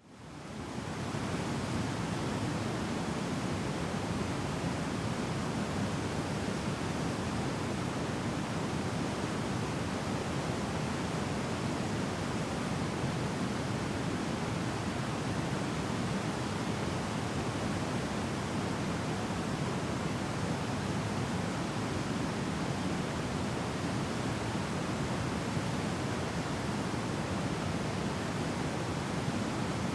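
Sogi Falls, a broad waterfall, with its roar of heavy falling water: a steady, dense rush that fades in over about the first second and then holds even.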